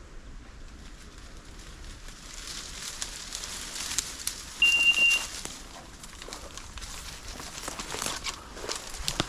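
Dry undergrowth crackling and rustling, as of someone pushing through brush on foot. About halfway through comes one short, steady, high-pitched tone.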